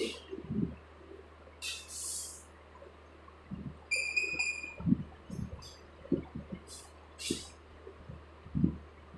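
Chalk writing on a blackboard: short irregular taps and knocks, with a few brief scratchy strokes. A short, high, squeaky chirp comes about four seconds in.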